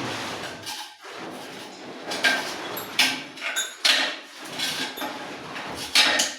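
Tiling work: a string of separate scrapes and knocks of hand tools against tiles and mortar, several seconds apart.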